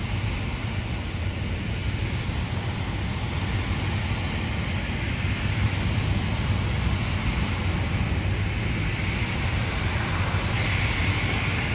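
A train running with a steady low rumble and hiss. A brighter hiss comes in near the end.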